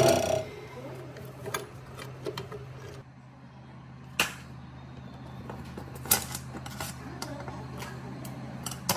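A drill press cutting into the wrench's steel stops in the first half second. Then come scattered metal clicks and knocks as the rusty pipe wrench is handled and taken apart on a steel diamond-plate surface, with the sharpest knocks about four and six seconds in. A steady low hum runs underneath.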